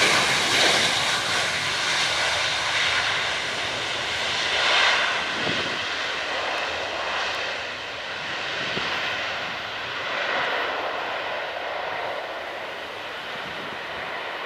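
Boeing 737-900ER's CFM56-7B jet engines during the landing roll just after touchdown: a broad rushing roar, loudest at the start with another swell about five seconds in, then slowly fading as the aircraft rolls away down the runway.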